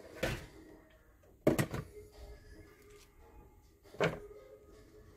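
Onion pieces dropped into a frying pan of sliced bell peppers: three sharp knocks and clatters against the pan, the second about one and a half seconds in being the loudest.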